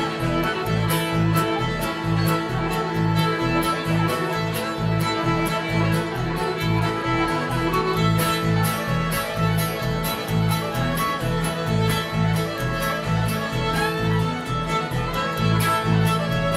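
Live instrumental bluegrass fiddle tune: two fiddles playing the melody together over upright bass, acoustic guitar and mandolin, with a steady bass beat.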